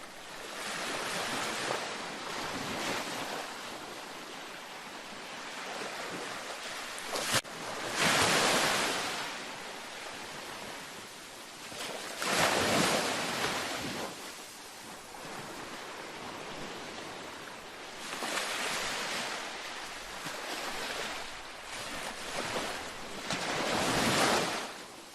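Gentle ocean surf washing onto a beach: rushing waves swell and fade every few seconds, with the biggest surges about eight, twelve and twenty-four seconds in. There is one short sharp click just before the second big wave.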